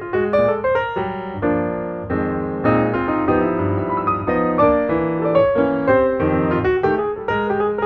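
Background piano music: quick runs of struck notes over sustained lower chords.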